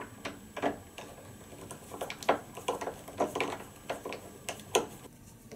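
Hand screwdriver turning out the screws of a door latch faceplate: a run of small, irregular metal clicks and ticks as the bit works in the screw heads, stopping about five seconds in.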